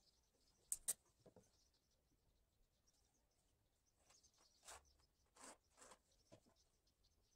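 Faint handling noises of marking tools and a long wooden strip on a plywood board: two sharp taps about a second in, then three short scrapes and a small knock near the end as the strip is laid across the board.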